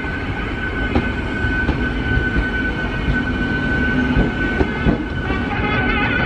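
MEMU electric multiple unit train rolling past, with a low rumble and wheels clicking and knocking over the rail joints, and a steady high whine over it.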